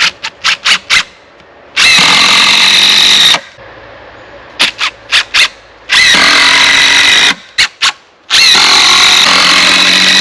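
Power driver driving screws into wooden deck boards: three loud, steady whirring runs of a second and a half to two seconds each, with short sharp taps in between.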